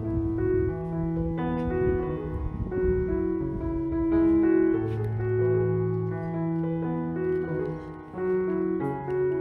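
Background music: a slow keyboard melody of held notes and chords, piano-like.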